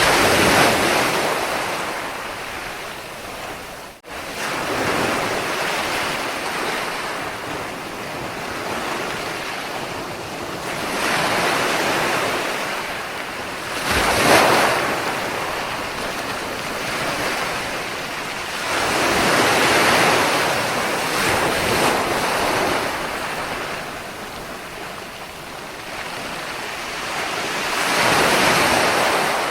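Ocean waves breaking and washing up the shore, swelling into a louder surge every several seconds over a steady hiss of surf. The sound cuts out for an instant about four seconds in.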